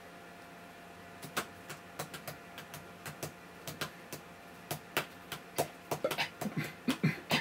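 Irregular clicks from a MacBook Pro's trackpad and keyboard. They start about a second in and come more often in the second half.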